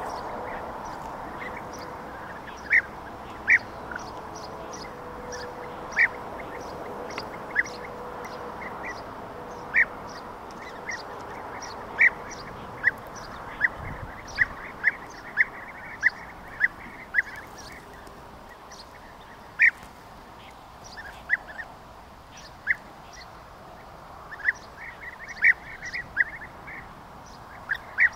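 European bee-eaters calling: short, clipped calls repeated at irregular intervals, at times in quick runs of about two a second.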